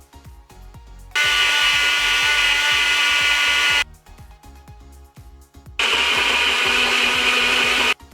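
HadinEEon personal smoothie blender's motor run in two short pulses of two to three seconds each, starting and stopping abruptly, chopping chunks of beetroot, carrot and apple with water. Background music with a light beat fills the gaps between pulses.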